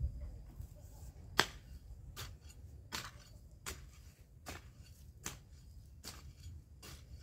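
A steady series of sharp snaps, about one every 0.8 seconds, as a person bent over a vegetable bed works the plants by hand; the first snap is the loudest.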